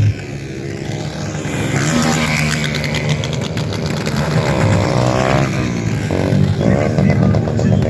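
Motorcycle engines revving at high revs, the pitch rising and falling several times.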